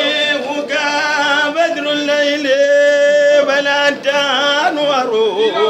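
Men chanting a religious song, the lead voice holding long, wavering notes.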